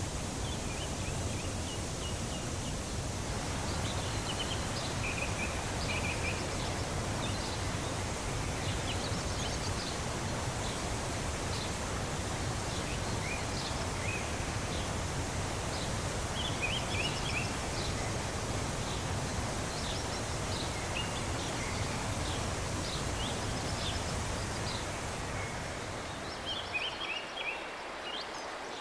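Shallow river water rushing steadily over a rocky riffle, with songbirds chirping repeatedly over it. The rush drops away near the end as the water turns calm.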